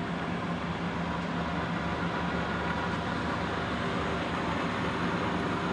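MSZ EE-800-01 heavy-duty lathe running with its spindle and chuck turning, a steady mechanical hum from the headstock drive with faint constant tones in it.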